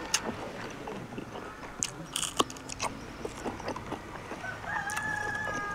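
Close-up eating sounds: biting and chewing food, with short crunchy clicks and wet mouth noises. A steady high tone joins near the end.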